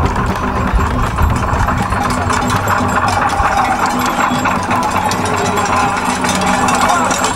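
Live drumming and rattling accompanying a Makishi masked dance: a dense, steady din with a constant low hum beneath it.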